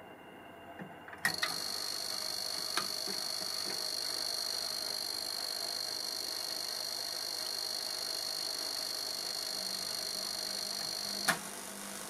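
Faulty Philips CD630 CD player switched on with a click, then a steady hiss with a high-pitched electronic whine for about ten seconds, cut off with another click. The owner traces the fault to a crack in the circuit board.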